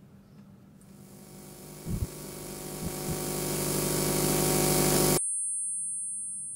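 Sound-design riser: a hiss packed with many tones swells steadily louder for about four seconds, with two low thuds early in the rise. It cuts off suddenly, leaving a thin high-pitched ringing tone that fades away.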